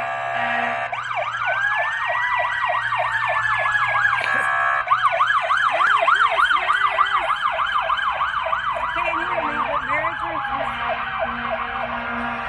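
Emergency vehicle siren sounding a rapid yelp, rising and falling about four times a second. A slower wail sweeps up and back down over the first few seconds, and a steady tone sounds at the very start.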